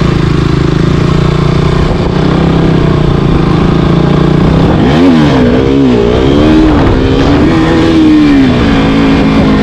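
Single-cylinder 200cc motorcycle engine riding a dirt trail, running steadily at low revs, then revved up and down several times about halfway through before settling and dropping in pitch near the end.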